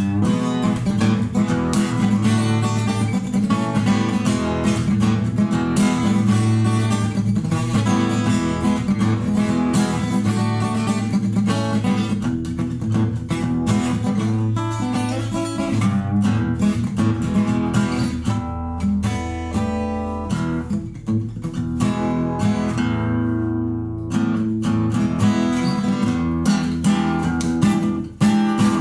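Fender FA-25 acoustic guitar being strummed, chord after chord. About two-thirds of the way through, a chord is left ringing and dies away before the strumming picks up again.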